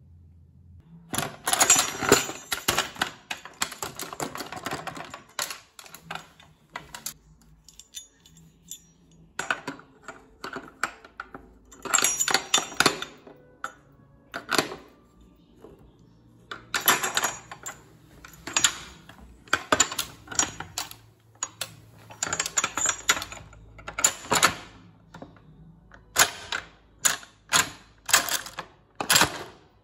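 Irregular runs of sharp tapping and clinking, like small hard objects being struck. The strikes come in dense clusters at first and as separate single strikes near the end.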